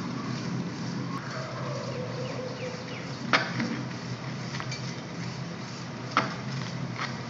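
Steady background hiss with two sharp taps about three seconds apart, the first a little after three seconds in: sandalled footsteps on a ledge.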